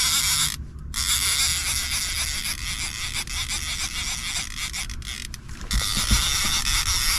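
Fishing reel clicking rapidly as a hooked musky is fought on the line, stopping briefly a few times. A couple of dull knocks about six seconds in.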